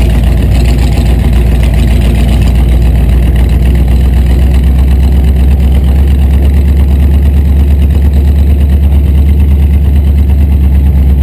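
Rat rod pickup's engine, exposed with no hood, running loud and steady with a low-pitched rumble, heard from inside the cab while the truck is driven along.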